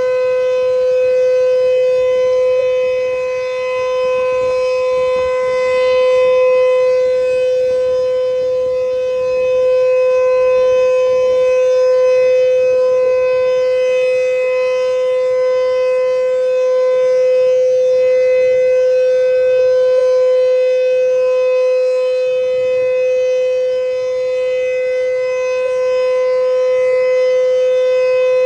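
Sentry 3V8HB outdoor warning siren sounding a steady alert signal: one unwavering tone that holds its pitch while its loudness slowly swells and fades.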